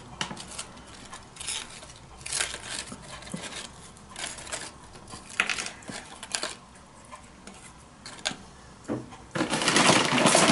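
Dry tortilla chips handled and laid one by one into a foam tray: light, crisp rustles and clicks every second or so. Near the end a much louder, steady noise sets in.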